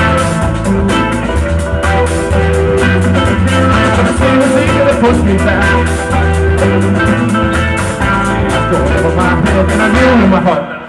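Live rock band playing loud amplified electric guitars over a drum kit. The steady drum beat runs throughout, and the full band drops out abruptly just before the end.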